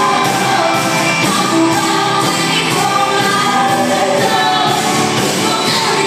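Live pop-rock band playing through a PA, with electric guitar and a woman singing lead.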